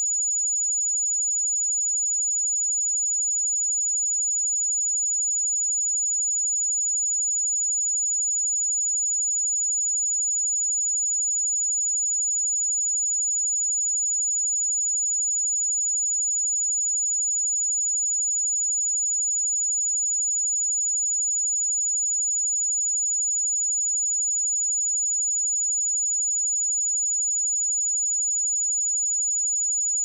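Steady pure sine-wave test tone at 6904 Hz, a single high-pitched whistle held at constant level.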